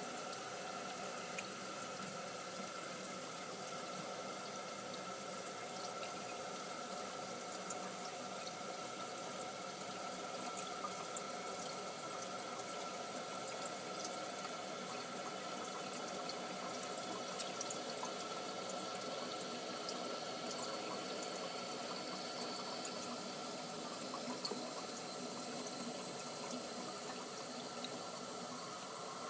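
Water running steadily from a leaking plumbing pipe: an even hiss with a faint steady whistle and a few small drip-like ticks.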